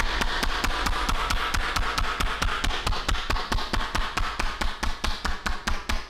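Percussive massage: hands beating on the body in a fast, even rhythm of about seven strikes a second, with a hiss of rubbing under the strikes.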